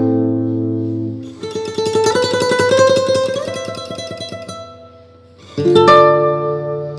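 Background music led by a plucked guitar: held notes, then a fast-picked passage from about a second and a half in that fades away, and a fresh chord struck near the end.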